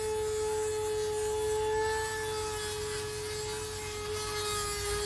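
Corded Dremel rotary tool running with a steady whine, its grinding stone held against the chain's depth-gauge links (rakers) to take them down. A hissing grind of stone on steel swells and eases as it bites the metal, strongest around two seconds in and near the end.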